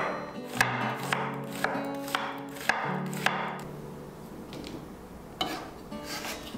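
Kitchen knife slicing a cucumber into rounds on a wooden cutting board, crisp chops at about two a second, stopping about three and a half seconds in. Soft guitar music plays underneath.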